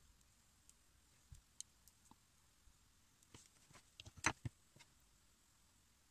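Small, sharp clicks and taps from a knife and a wax bite rim being handled, a few scattered and a quick cluster about four seconds in; otherwise near silence.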